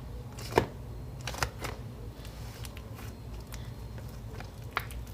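Giant gum-like slime with styrofoam beads being worked by hand, making a run of sharp clicks as trapped air bubbles pop. A few clicks are loud and the rest faint.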